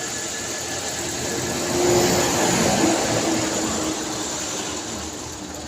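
Hyundai Accent engine running after a crank-no-start, rising briefly in speed and loudness about two seconds in, then settling. It runs, but still has a fault that the mechanic puts down to a position sensor.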